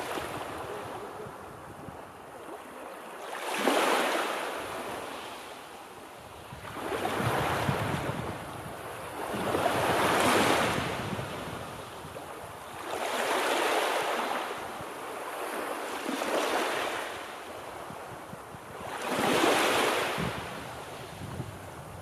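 Ocean surf: waves breaking and washing up, the rush swelling and fading about six times, every three to four seconds.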